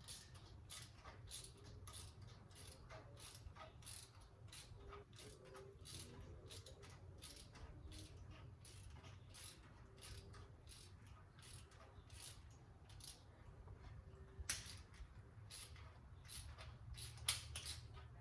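Faint, irregular small clicks and ticks, several a second, from hand-working a heli-coil installation tool and insert into the threaded nose of a small-block Chevy crankshaft, over a low steady hum; two louder clicks come near the end.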